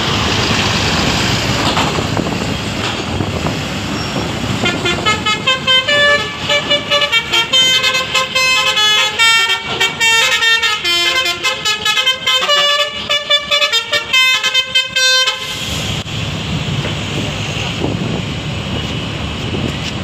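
Bus "telolet" horn, a multi-tone musical air horn, playing a fast run of chiming notes in quick pulses for about ten seconds, starting around four and a half seconds in and cutting off suddenly. Bus engines run underneath throughout.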